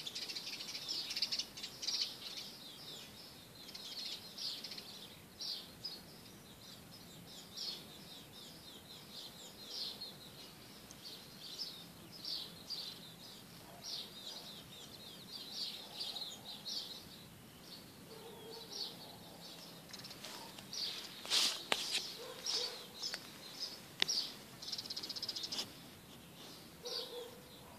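Small birds chirping and singing in quick runs of short, high notes throughout. Two or three sharp clicks stand out about three-quarters of the way through.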